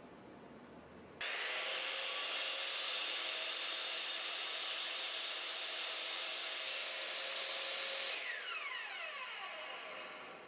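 Electric woodworking power tool running at full speed with a high whine, then switched off about eight seconds in, its motor pitch falling as it spins down.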